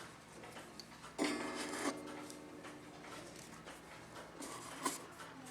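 Quiet handling sounds of a wooden clock case and its movement: light knocks, clicks and rubbing. About a second in there is a short steady pitched sound lasting under a second.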